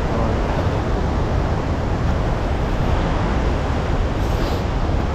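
Waterfall and stream water rushing steadily, with a deep rumble underneath.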